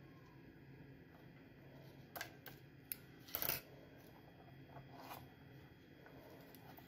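Scissors snipping the paper tag off a silicone oven mitt and the tag being handled: a few light clicks and rustles, the loudest cluster a little past three seconds in.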